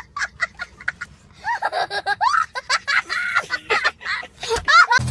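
A high-pitched voice giggling in quick short bursts, then breaking into fast, high chattering and laughter.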